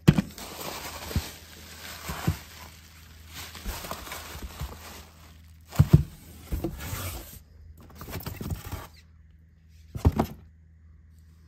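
Unboxing handling noise: packaging rustling, with scattered knocks and thuds as parts are picked up and set down, the loudest thud a little before halfway. The rustling dies away after about seven seconds, leaving a last pair of knocks near the end.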